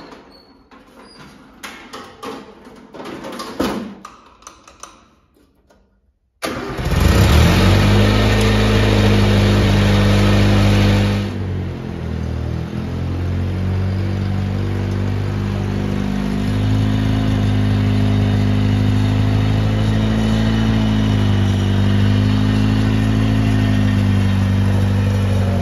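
A few faint clicks and knocks, then a Satoh Bison S650G tractor's 1-liter four-cylinder gasoline engine running, now fitted with a new ignition coil, points, condenser, cap and rotor. It comes in suddenly and loud about six seconds in, then drops to a lower, steady speed just past halfway.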